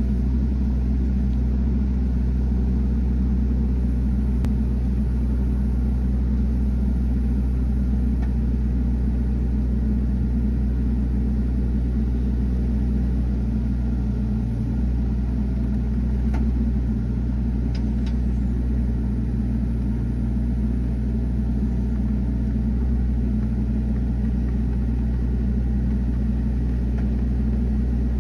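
Mini excavator's diesel engine running steadily at a constant speed, a deep even rumble, while its arm lifts a load on straps.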